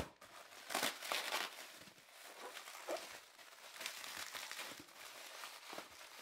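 Plastic bubble wrap crinkling and crackling as it is pulled and pressed by hand, with packing tape being peeled off, while a wrapped pot is unwrapped. A sharp click at the very start; the crinkling is busiest about a second in.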